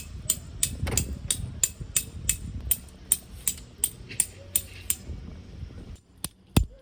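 Sharp clicks in an even rhythm, about three a second, over a low background rumble that drops away near the end.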